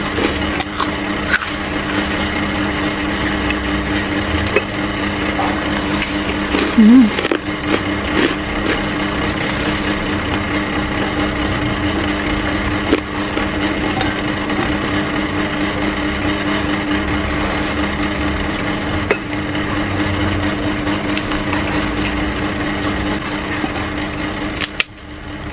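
A small motor humming steadily, with a brief louder sound about seven seconds in.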